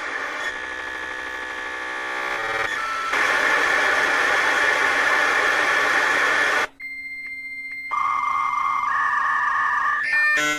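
Dial-up modem handshake: hissing static laced with steady electronic tones, cutting out briefly about two-thirds through, then high tones and hiss again.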